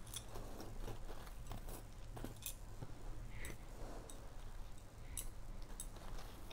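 Faint steady low hum with scattered small clicks and crackles at irregular moments, and no speech.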